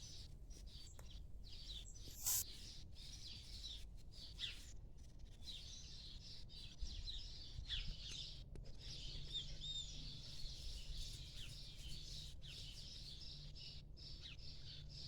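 Small birds chirping faintly outdoors, many short overlapping calls that grow busier about halfway through. A brief louder noise comes a little over two seconds in.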